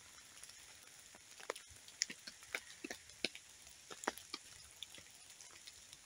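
Rain dripping and pattering on a tarp overhead: irregular single drops, a few a second, over a faint steady hiss.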